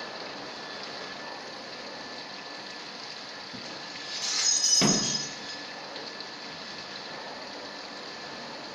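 Dry-cleaning machine running, with liquid splashing and gushing steadily inside its drum. About four seconds in comes a louder burst of about a second, with a high whistle and a quick drop in pitch.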